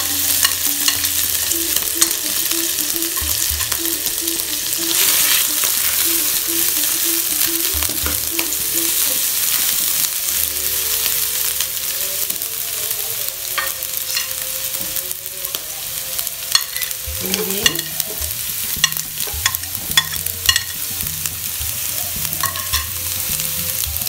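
Chopped shallots sizzling steadily in hot oil in a non-stick wok, stirred with a wooden spatula. The spatula scrapes and taps against the pan, with clicks coming more often in the second half.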